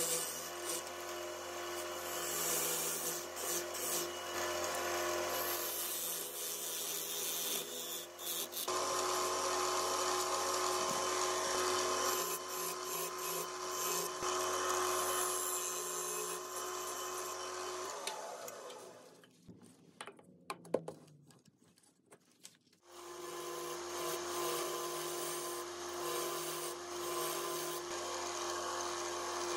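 Wood lathe motor humming while a gouge scrapes and cuts into the spinning wood. About eighteen seconds in the lathe winds down with a falling pitch and goes nearly quiet for a few seconds with a few clicks, then runs and cuts again.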